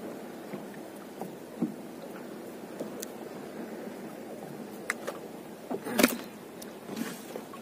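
Steady wash of water around a small boat, with small knocks and rustles of a gill net being hauled in and a fish worked out of the mesh; a louder knock about six seconds in.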